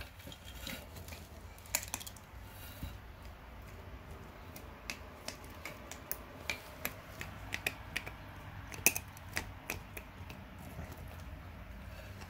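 Scattered, irregular faint clicks and light crunches of a tegu's jaws working on a giant African land snail's shell, not managing to crush it.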